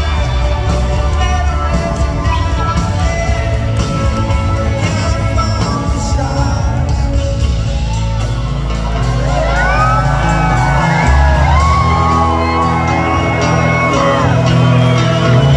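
Live rock band playing a country-rock song, with strummed acoustic guitar over bass and drums. About nine seconds in, a slide guitar lead comes in over the band, its notes gliding up and down in pitch.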